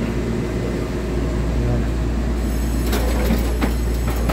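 Steady low rumble of an EMU3000 electric train standing at the platform with its doors open, its on-board equipment running. A few sharp clicks come about three seconds in.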